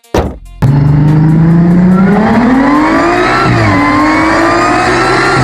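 Supercharged Audi engine pulling hard under full throttle, its pitch climbing steadily, dropping sharply at an upshift a little past the middle, then climbing again. This is a wide-open-throttle run made to log knock data after a coil pack swap.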